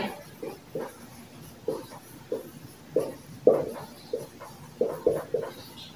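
Marker writing on a whiteboard: about a dozen short, irregular pen strokes.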